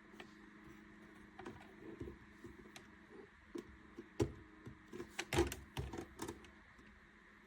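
Light irregular clicks and knocks of things being handled, the loudest cluster a little past the middle, over a faint steady hum.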